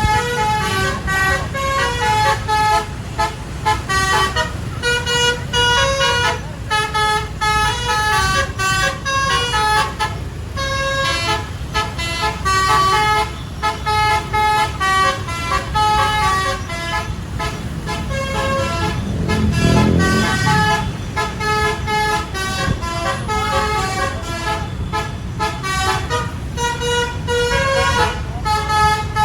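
A bus's basuri 'telolet' multi-tone horn playing a fast melody of short stepped notes, over the low rumble of engines and traffic. The rumble swells briefly about two-thirds of the way through.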